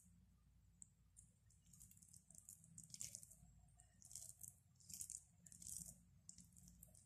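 Fingers mixing cooked rice and curry on a plate: faint, soft, sticky squishing and crackling in a few short bursts, coming about a second apart in the second half, over a low steady hum.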